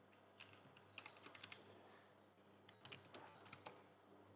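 Faint computer keyboard typing, in two short runs of key clicks, about a second in and about three seconds in.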